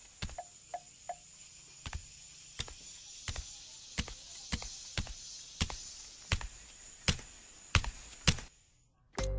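A string of sharp clicks or taps, about one or two a second, over a steady hiss; the hiss cuts off near the end.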